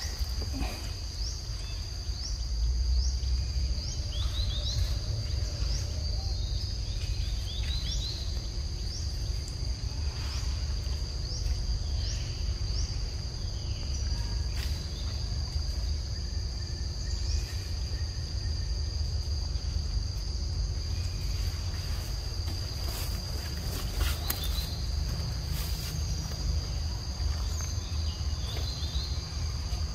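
Forest ambience: insects droning steadily at a high pitch. For the first dozen seconds a bird gives short rising chirps about once a second, over a constant low rumble and a few sharp clicks.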